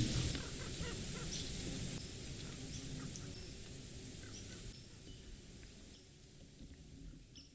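Outdoor field recording of many short bird calls scattered over a steady background hiss, the whole recording fading out steadily.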